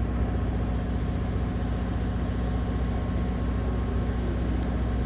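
A motor vehicle engine idling steadily, a low even hum. A faint click comes near the end.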